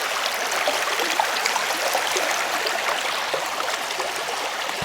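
Swollen creek running fast, a steady splashing rush of water.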